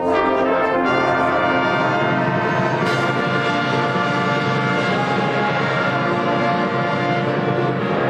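Marching band brass playing full, sustained chords, coming in loud after a softer moment, with a sharp accent about three seconds in.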